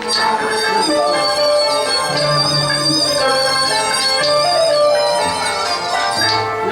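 Teochew opera music with bowed fiddles carrying the melody in long held notes over a lower accompaniment.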